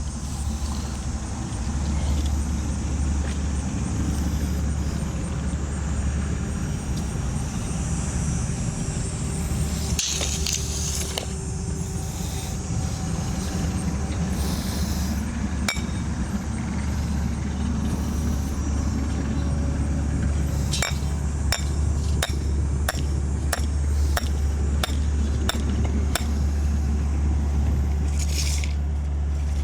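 An engine runs steadily with a low drone. About two-thirds of the way through, a run of sharp knocks comes at roughly two a second for several seconds.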